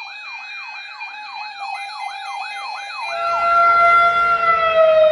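Siren in a fast yelp, its pitch sweeping up and down about three times a second; about three seconds in it changes to a steady tone while a low rumble builds beneath it and the sound grows louder.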